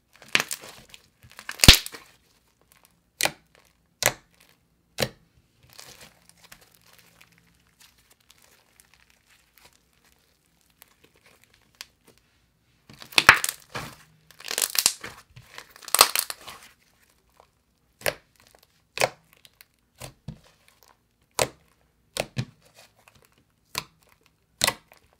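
Thick yellow clay slime being pressed and folded by hand, giving a string of sharp clicks and pops, with denser crackling a little past the middle.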